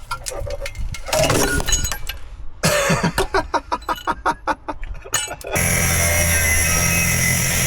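Metal knocks and clanks, with a rapid run of sharp knocks about five a second, then an angle grinder starting suddenly about five and a half seconds in and running steadily with a high whine, cutting through a rusty exhaust.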